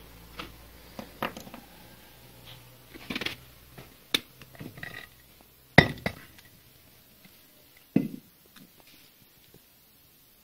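Cast-iron parts of a dismantled bench vise being handled and set down: scattered metal clinks and knocks, the loudest a sharp clank about six seconds in and another knock near eight seconds.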